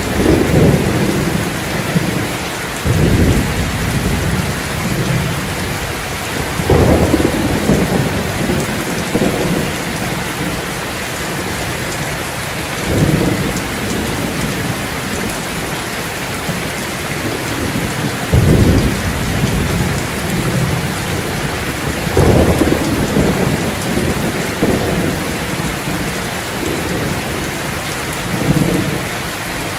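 Steady rain falling, with low rumbles swelling up and dying away every few seconds.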